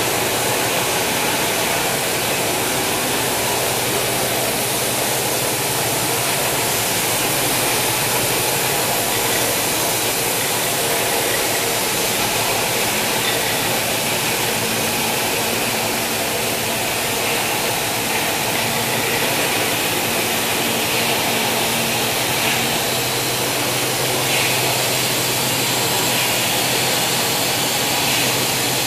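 Steady din of woodworking factory machinery: an even rushing noise with a low hum under it.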